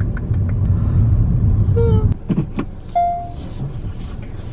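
Car cabin rumble of a car driving slowly into a parking space, cutting off abruptly about two seconds in as the car stops, with rapid faint ticking in the first second and a single short electronic beep about a second after the stop.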